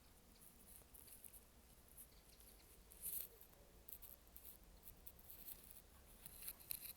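Near silence with faint, scattered rustles and ticks, a little louder about three seconds in and again near the end.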